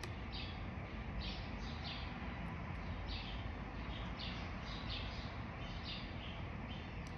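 Songbirds chirping: a run of short, high chirps, roughly two a second, over a low steady background noise.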